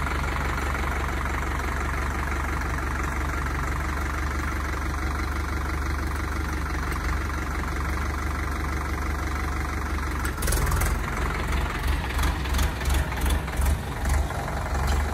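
Indo Farm 3065 DI tractor's diesel engine running steadily as the tractor crawls along in a very slow low gear. For the last few seconds the sound gets louder in uneven pulses.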